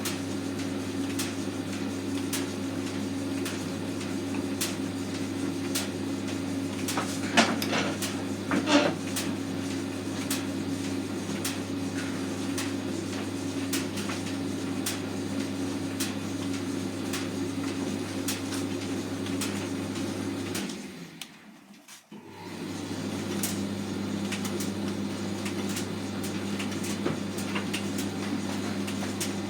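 Hotpoint FETV60 tumble dryer running on its newly fitted drum bearing: a steady hum with a regular light ticking, and two louder knocks about a quarter of the way in. About two-thirds through, the motor cuts out for a moment and then starts again with a slightly lower hum.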